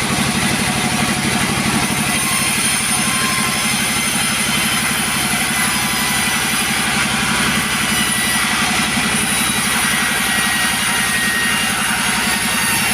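Two-stroke chainsaw running steadily without a break, a fast even engine buzz under a loud hiss of chain noise.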